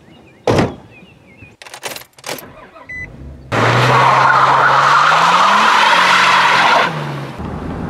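SUV doors slamming shut, several knocks in quick succession, then the engine revving hard as the SUV pulls away from a standstill, its tyres spinning on loose gravel and spraying grit. The engine note climbs and then drops back, and the tyre and gravel noise stops suddenly near the end.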